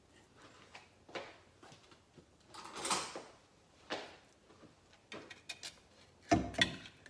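Scattered knocks and scrapes of kitchen handling: an opened tin of coconut cream picked up and set on the counter, then a spoon and the tin knocking against a pot as the thick cream is scooped in. The loudest knock comes near the end.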